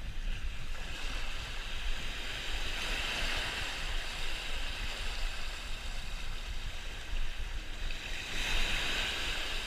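Small surf washing on the beach, a steady hiss that swells about three seconds in and again near the end, over a low rumble.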